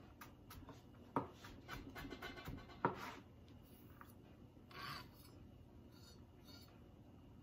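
Chef's knife chopping garlic on a plastic cutting board: quick light taps with two sharper knocks in the first three seconds, then a short scrape a little before the end.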